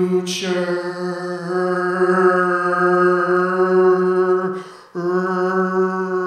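Live electronic music: one long held note, steady in pitch and rich in overtones, with a brief break about four and a half seconds in before it resumes.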